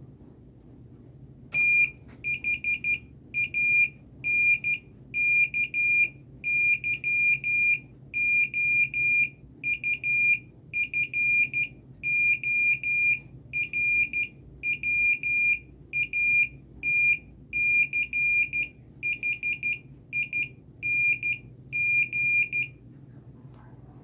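Piezo beeper driven by an Arduino Nano sending Morse code: a single high-pitched beep keyed on and off in dots and dashes, grouped into letters with short gaps between. It starts with a click about a second and a half in and stops shortly before the end.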